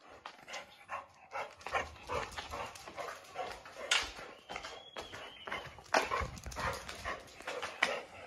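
Chow Chow dog running about on concrete, its paws and claws scrabbling in a quick irregular patter, with panting and a few sharper knocks.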